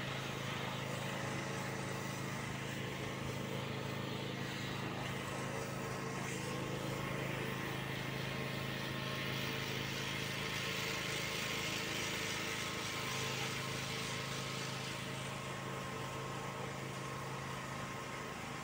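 A motor running steadily: a constant low drone with a hiss over it.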